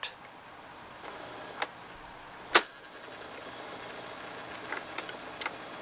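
Sony TC-200 reel-to-reel tape deck's motor and drive running steadily. A sharp click of its controls comes about two and a half seconds in, after which the running sound slowly grows, with light ticks near the end.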